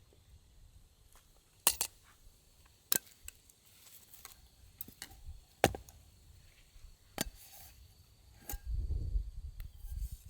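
A handful of sharp clicks and knocks, about five spread a second or two apart, then a low rumble near the end.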